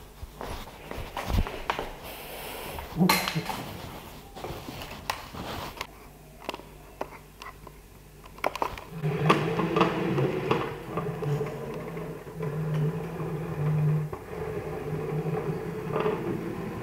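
Amber B1 7-axis robot arm's joint motors humming as the arm moves under program control, starting about nine seconds in: a low hum with a higher tone above it, swelling and easing. Before that, scattered clicks and knocks.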